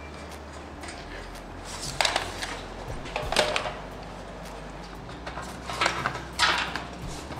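Plastic car front-end parts being handled and fitted together by hand: irregular knocks, clicks and scraping, with a steady low hum underneath.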